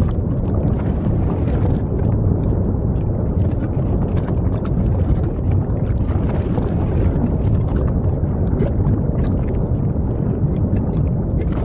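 Volcanic eruption rumbling steadily and deeply, with faint scattered crackles over the rumble.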